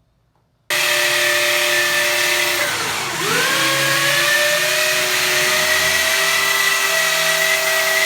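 Electric power tool motor running hard, starting sharply under a second in. Its pitch sags briefly about three seconds in, as if bogging down under load, then climbs back and holds steady.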